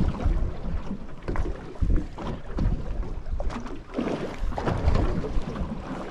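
Wind on the microphone and water slapping against a small boat's hull, with scattered knocks and clicks from handling a spinning rod and reel.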